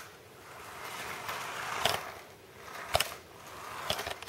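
Toy RC buggy's small electric motor whirring as its plastic wheels roll across a hard floor, swelling and fading twice as it speeds up and slows, with a few sharp knocks.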